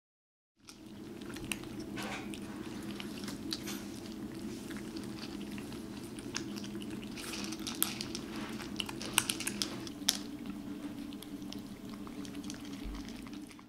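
British Shorthair kittens eating: small irregular chewing clicks and smacks over a steady low hum, with a few sharper clicks about eight to ten seconds in.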